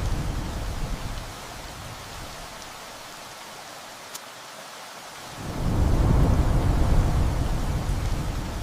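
Steady rain with thunder: one rumble fades out in the first second or so, and a second rumble swells up just past the middle and dies away near the end.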